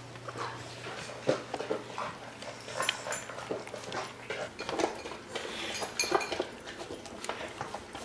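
Dogs eating moistened kibble from bowls: irregular chewing and crunching, with small clicks and clinks of food and teeth against the bowls.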